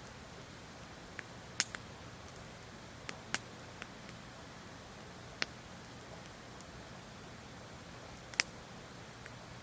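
Wood fire crackling in a fire stand: a few scattered sharp pops, the loudest about one and a half seconds in and near the end, over a steady faint hiss.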